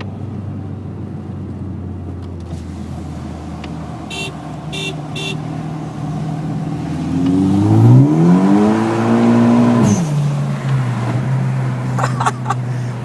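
Car engine running steadily, then revving up hard about seven seconds in, its pitch climbing and holding high for a couple of seconds before dropping back to a steady drone. Three short beeps sound just after four seconds.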